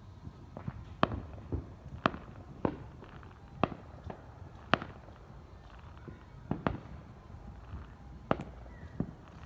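Fireworks going off around the neighbourhood: a string of sharp bangs at uneven spacing, roughly one a second, over a low background rumble.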